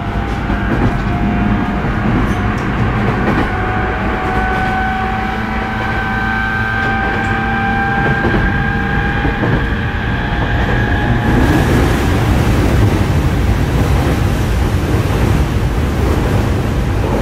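Running sound inside the motor car of a JR East E231 series 0 electric commuter train. The traction motor whine rises slowly in pitch over a steady rumble of wheels and floor. About eleven seconds in, the whine fades and a loud hiss takes over.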